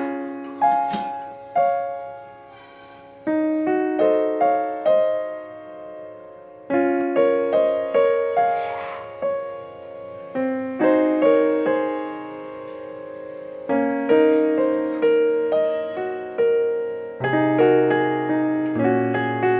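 Background piano music: a slow melody of single notes and chords, each note struck and dying away.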